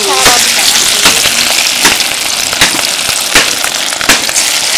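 Foli (featherback) fish kofta deep-frying in hot oil in an iron karahi: a loud, steady sizzle with sharp spitting pops less than a second apart.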